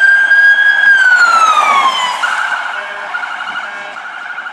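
Police car siren: a long high wail held steady, then falling in pitch about a second in, then switching to a fast, rapidly repeating pulsing tone about two seconds in, growing fainter toward the end.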